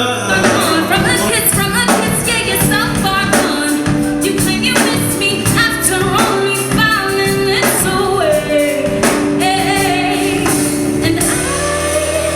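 A song performed live: a voice singing with wavering, gliding notes over band backing with sustained bass notes and a steady drum beat.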